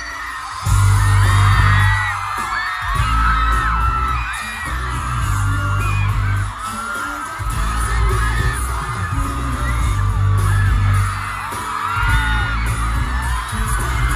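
Live pop song over a concert sound system with a heavy bass beat that drops out briefly a few times. Over it, a dense crowd of fans close to the microphone screams and cheers.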